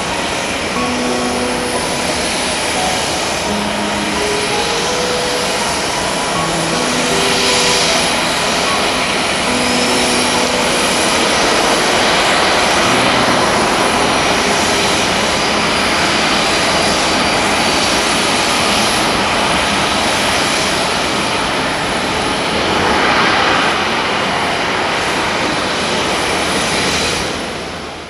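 Airbus A380 jet engines running steadily at taxi power, a dense whine and rush, with the wet taxiway adding spray. The sound fades out at the very end.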